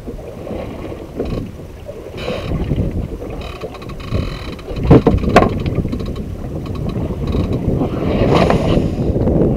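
Wind buffeting the microphone, a rough low rumble that grows louder near the end, with two sharp knocks about halfway through.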